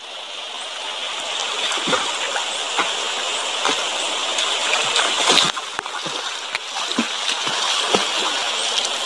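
Water splashing as swimmers kick and dive face-down in river water: many short irregular splashes over a steady rush of moving water.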